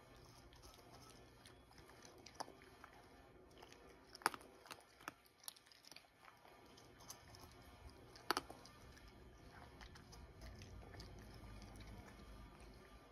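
Cat crunching dry kibble from a ceramic bowl: faint, irregular crunches and bites, with the loudest ones about four and eight seconds in.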